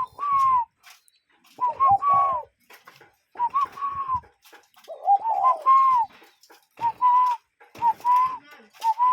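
A cuckoo calling over and over, about seven short two-note calls, the second note of each longer and dropping at its end. A second, lower-pitched bird calls over it twice.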